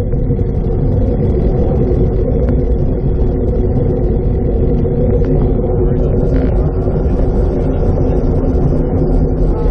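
Wind rushing over the microphone and road-bike tyres rolling on asphalt at speed. The result is a loud, steady low rumble with a faint hum running through it.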